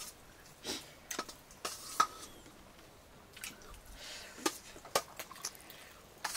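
A metal spoon clinking against a plate, with the soft wet mouth sounds of someone eating rice. There are a handful of sharp clicks, the loudest about two seconds in.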